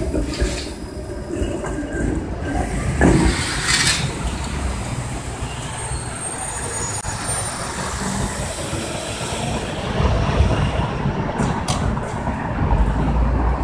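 Bombardier Flexity low-floor streetcar passing at street level, a steady rumble of its wheels on the rails mixed with passing road traffic. A faint high whine comes in about six seconds in and lasts just over a second.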